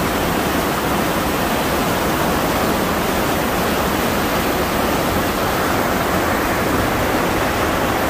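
Fast mountain stream rushing over rocks and ice: a loud, steady rush of water that does not change.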